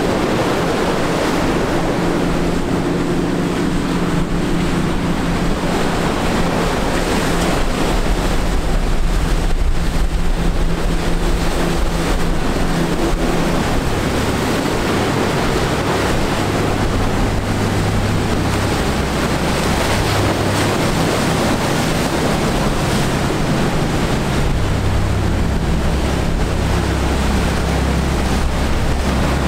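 Surf breaking and wind on the microphone, over the steady low drone of a fishing boat's engine pushing through rough water. About halfway through, the drone gives way to the deeper drone of a large party boat's engines.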